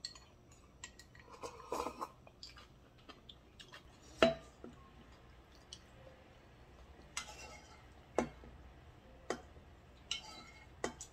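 Scattered clinks and knocks of a pot, chopsticks and ceramic bowls being handled at the table, the loudest a sharp ringing knock about four seconds in.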